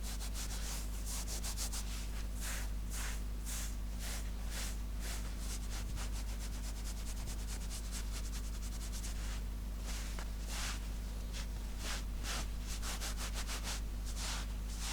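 Scratching on fabric in repeated strokes, quick and close together at first, then slower at about two strokes a second, over a steady low hum.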